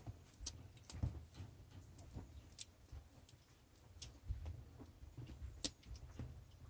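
Faint scattered ticks and soft rustling as a young puppy shuffles about on a fleece blanket, with low muffled bumps now and then.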